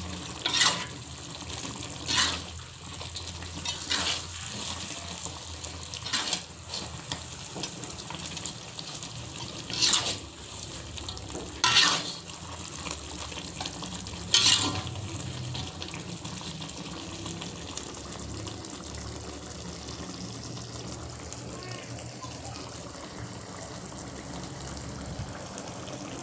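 Kitchen cooking noises: about seven short, sharp splashing or scraping sounds in the first fifteen seconds, over a steady background hiss that continues alone afterwards.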